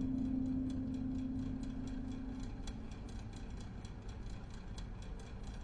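Steady, rapid ticking, about four ticks a second, with a low held tone that fades out about two and a half seconds in.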